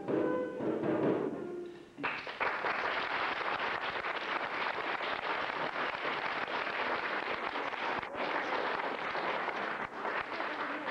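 The last notes of music end about two seconds in, and audience applause breaks out at once, a dense clapping that lasts until near the end and then fades.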